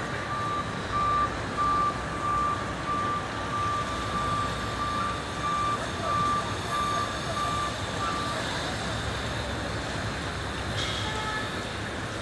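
Airbus A400M's four turboprop engines running as it comes in with gear down, a steady rushing drone. Over it, a loud high electronic beep repeats about one and a half times a second and stops about eight seconds in.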